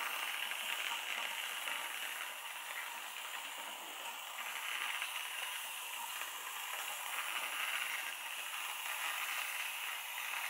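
Aerosol can of squirty whipped cream spraying a topping onto a latte: a steady hiss.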